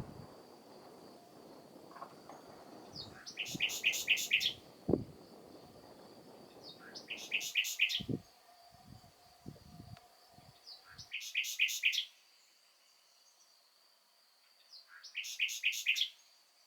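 Common nightingale singing: four short phrases a few seconds apart, each a rapid run of repeated loud notes. A faint steady high tone runs underneath, and a low rumble with a few dull thumps is heard in the first half.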